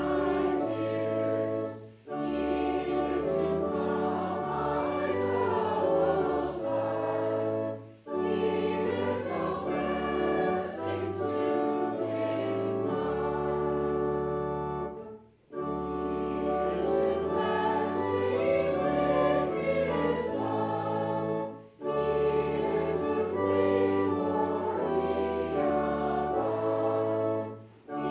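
Voices singing a hymn together over instrumental accompaniment with a steady bass line. It goes in phrases of about six seconds, each followed by a brief pause.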